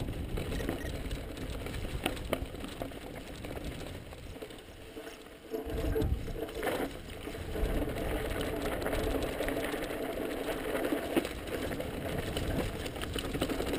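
Mountain bike rolling down a rough, rocky trail: tyres on dirt and rock with the bike rattling and scattered sharp knocks. It quietens briefly about four and a half seconds in, then the rattling comes back abruptly.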